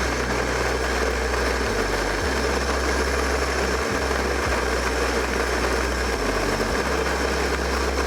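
Cuisinart conical burr coffee grinder running steadily as its motor drives the burrs through a batch of coffee beans, cutting off at the very end.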